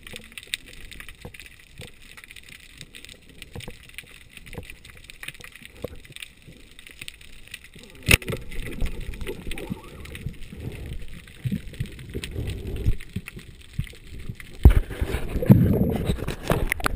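Underwater noise heard through a GoPro's waterproof housing as a diver swims: scattered clicks and crackles, turning into louder low rushing and knocks about halfway through. Near the end there is a heavy thump, then water splashing as the camera breaks the surface.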